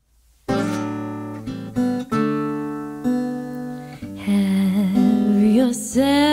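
Acoustic guitar intro: a few slow chords struck and left to ring. About two-thirds of the way in, a woman's voice starts singing over the guitar.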